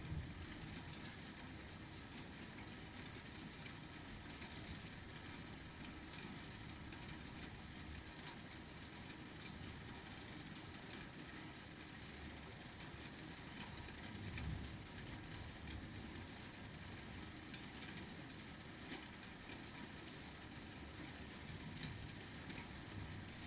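Steady rain: an even hiss with many scattered drop ticks, and a low rumble underneath that swells briefly about halfway through.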